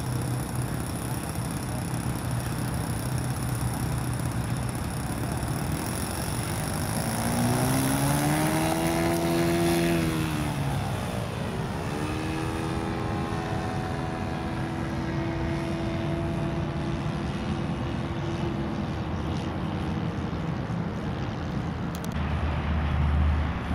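Radio-controlled model airplane's small engine and propeller running as the plane flies. Its pitch swells and then drops sharply as it passes about ten seconds in, then it runs at a steady drone, with a short low rumble near the end.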